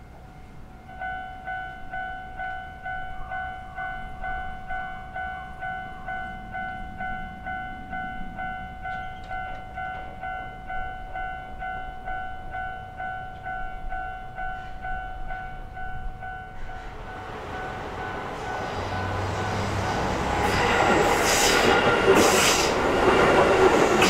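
Japanese railway level-crossing alarm ringing from about a second in: an electronic bell repeating in a steady pulse. From about two-thirds of the way through, a Keihan Main Line train approaches and passes, its running noise and wheel clatter growing loud and covering the bell.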